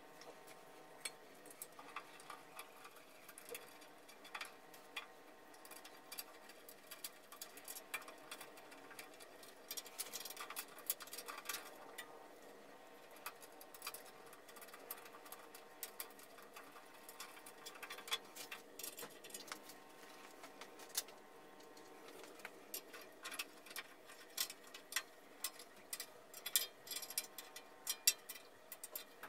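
Irregular light clicks, taps and small metal knocks as the bandsaw's steel stand legs and their fixings are handled and bolted on, over a faint steady hum. The taps come more thickly about ten seconds in and again near the end.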